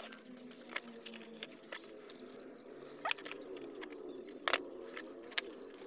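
Scattered light clicks and taps of hands handling a wire inside an opened plastic multimeter case, the sharpest about four and a half seconds in, over a faint steady hum.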